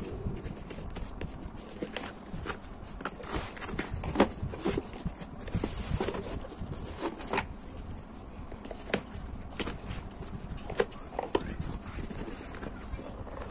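Irregular taps, clicks and rustles of packaging and parts being handled during an unboxing.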